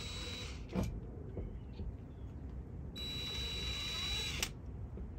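Cordless drill with a step bit spinning against the van's sheet-metal roof in two short bursts, a high steady whine with scraping noise: one right at the start, the second about three seconds in and lasting about a second and a half. A short knock just under a second in. The bit is skating on the angled panel rather than biting in.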